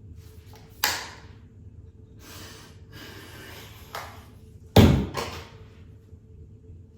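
Handling noises: a sharp click, then stretches of rustling, then a heavy thump, like a door shutting, just before the five-second mark.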